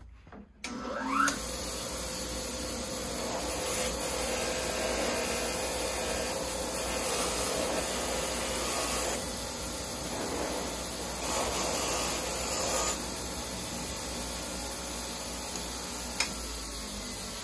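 A bench grinder starts up about a second in and runs steadily. Rusty steel duck bill pliers are pressed against its spinning wheel, and the grinding hiss swells each time they are pushed into the wheel and eases when they are drawn back.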